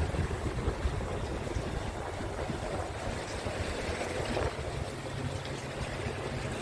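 Scania R truck's diesel engine idling with a steady low rumble.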